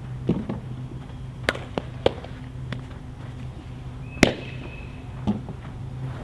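Softball catch: several sharp pops of the ball smacking into leather gloves, the loudest about four seconds in, with a duller thump of a catch a little after five seconds.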